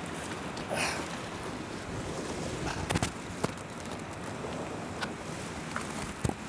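Steady rush of river rapids and white water, with a couple of short sharp knocks about three seconds in.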